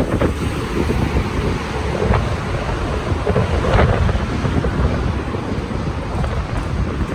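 Wind buffeting the microphone of a moving bicycle: a loud, steady low rumble, broken by a few brief bumps.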